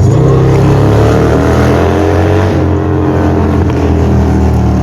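Harley-Davidson Street Glide's V-twin engine running loud and steady, its pitch rising gently and falling back.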